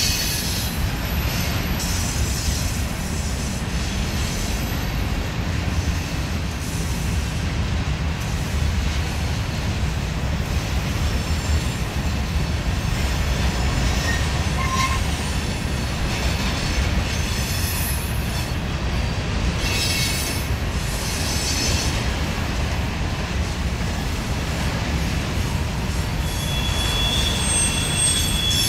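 Empty covered grain hopper cars of a freight train rolling past with a steady low rumble of wheels on rail. High-pitched wheel squeal comes and goes, rising to a steady squealing tone near the end.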